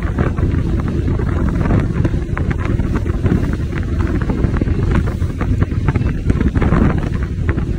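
Wind buffeting the microphone on a motorboat under way at speed, a loud steady rush over the water with constant crackling gusts.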